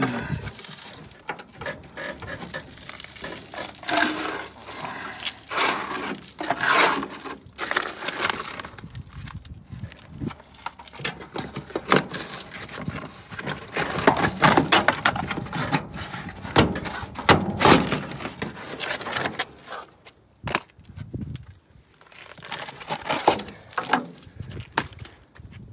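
Crumbling rust and packed dirt being pulled by hand out of a rusted-through car body, crunching and crackling in irregular bursts, with bits dropping onto concrete.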